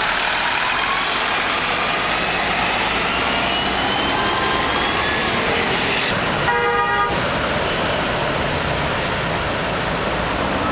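Street traffic noise from passing cars, a scooter and buses, with one short vehicle horn toot about six and a half seconds in.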